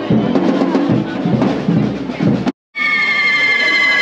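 Drums beating a fast rhythm over crowd noise, which cuts off abruptly about two and a half seconds in. Then a steady high whistling of fireworks, several tones sounding together and slowly sinking in pitch.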